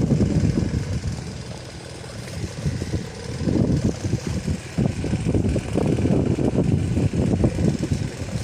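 Strong gusty wind buffeting the microphone, a low rumble that swells and fades with each gust and eases off about two seconds in before building again.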